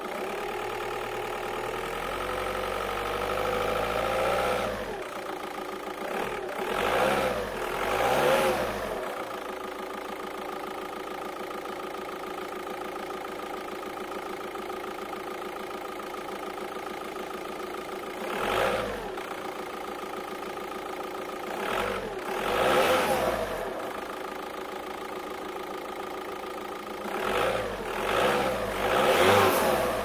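2004 SEAT Toledo's diesel engine idling and being revved: a slow climb in revs over the first few seconds that drops back to idle, then several short throttle blips, singly or in pairs, each rising and falling back to idle.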